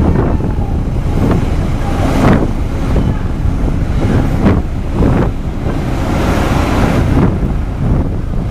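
Wind buffeting the microphone in gusts over the churn of harbour water stirred up by a large car ferry's propellers and thrusters as it pulls away from the quay, with a steady low rumble beneath.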